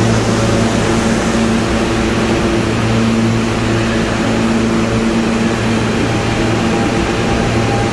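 R160B subway train with Siemens propulsion at the platform, a loud steady electrical hum under a noisy drone, as it starts to pull out. A faint higher tone comes in about six seconds in and creeps up slightly near the end.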